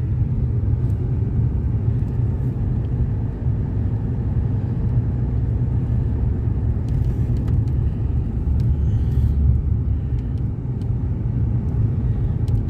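Car cabin noise while driving slowly on a snowy road: a steady low rumble of engine and tyres, with a few faint clicks.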